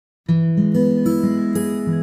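Background music of a plucked and strummed acoustic guitar, starting about a quarter second in.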